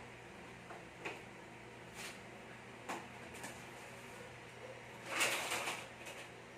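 Metal wire shelf rack being handled and dismantled: a few separate light knocks and clicks, then a longer clatter of metal parts about five seconds in.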